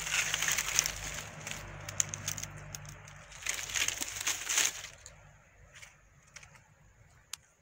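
Dry palm fronds and debris crackling and rustling as they are disturbed, in two loud stretches over the first five seconds, then a few faint clicks and one sharp click near the end.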